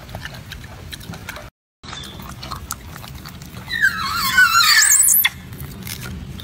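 High-pitched squealing call of a golden snub-nosed monkey, wavering up and down for about a second and a half just past the middle, over a low background hum. Shortly before, the sound drops out briefly.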